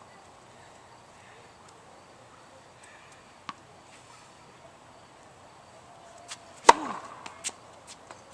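A tennis ball bounces once on the hard court, and about three seconds later a ProKennex Black Ace racket strikes the ball on a serve with a single loud, sharp pop, followed by a few fainter knocks as the ball lands and bounces away.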